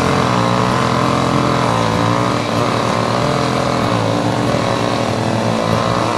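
Chainsaw running steadily at working revs, its pitch wavering slightly as it cuts down a tree.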